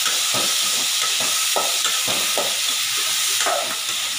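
Boiled chayote pieces and dal sizzling in a tempering of onion and spices in an aluminium pan: a steady sizzling hiss with repeated scrapes of a metal spoon stirring them against the pan.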